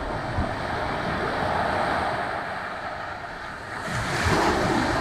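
Ocean surf washing on a beach, swelling louder about four seconds in, with wind buffeting the microphone.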